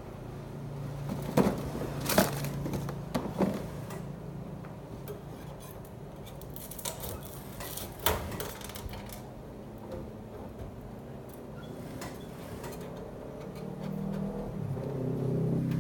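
A few sharp clicks and knocks of hard objects being handled, scattered over a low steady hum; the hum grows louder near the end.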